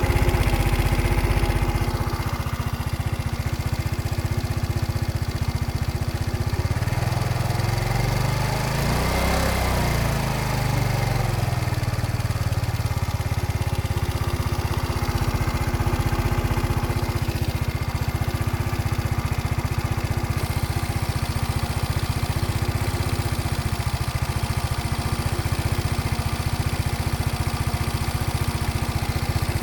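Motino Techno 50 scooter's YY50QT 50 cc four-stroke single-cylinder engine running steadily, with a brief dip and recovery in engine speed about nine seconds in. This is a freshly rebuilt engine that gets extremely hot after a few kilometres, and the owner asks whether it sounds normal.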